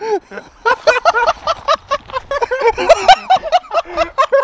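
A person's voice making rapid wordless vocal sounds, short pitched syllables at about four or five a second.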